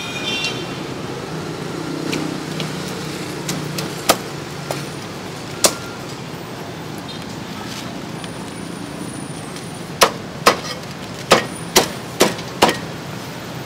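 Meat cleaver chopping roasted duck on a thick wooden chopping block: two single chops, then a run of six sharp chops about half a second apart near the end, over steady background noise.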